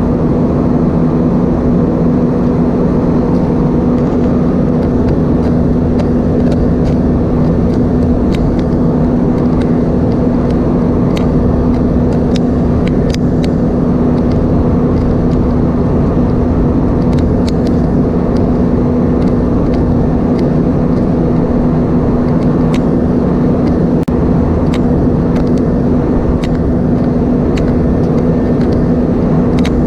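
Cabin noise inside an Airbus A320-232 with its IAE V2500 engines running: a steady, even drone with a constant hum. Faint clicks are scattered through it.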